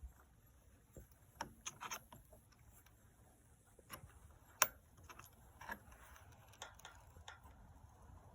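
Faint, scattered metal clicks and taps from the chainsaw's combination wrench working the bar nut as it is tightened on a Husqvarna 450 Rancher chainsaw. One sharper click comes about four and a half seconds in.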